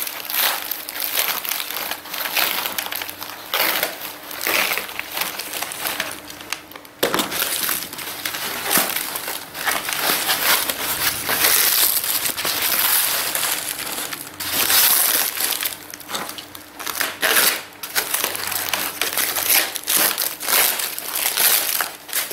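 Thin plastic packing wrap being crumpled and pulled away by hand, a continuous crinkling and rustling that swells and fades irregularly.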